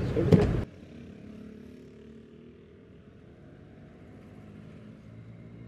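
A loud, busy sound with a few sharp clicks cuts off abruptly less than a second in. A faint, steady low hum with a few held tones remains, like a distant motor.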